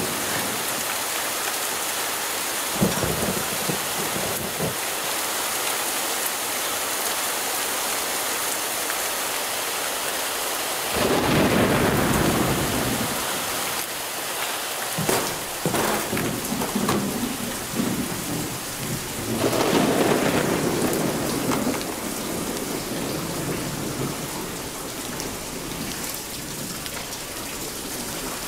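Heavy rain pouring down steadily, with two long rolls of thunder, the first about eleven seconds in and the second about twenty seconds in.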